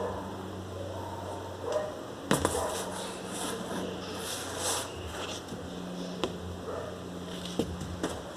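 Handling noise in a small room: a few sharp knocks and clicks, with a stretch of rustling in the middle, over a steady low hum.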